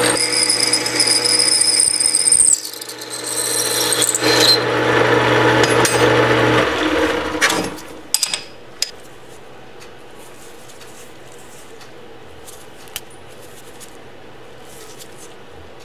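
Metal lathe running with a high whine while a twist drill in the tailstock bores into the workpiece spinning in the chuck. The sound dips about two and a half seconds in, then the lathe is switched off about seven seconds in and spins down, leaving low background with a few light clicks.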